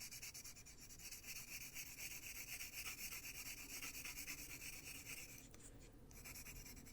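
Colored pencil shading on coloring-book paper: quick, light back-and-forth strokes making a soft scratchy rubbing, with a short pause about five and a half seconds in.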